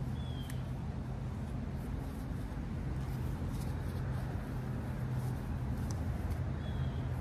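Faint clicks of a folding tripod's legs being swung open over a steady low background hum, with two short high chirps, one near the start and one near the end.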